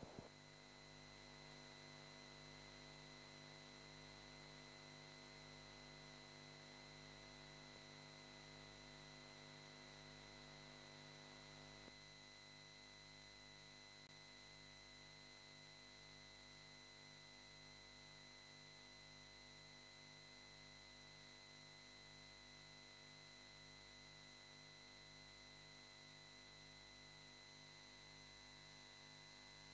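Near silence: room tone with a faint, steady hum and hiss.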